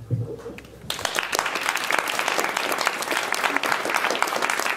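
Audience applauding, a dense steady clapping that breaks out about a second in.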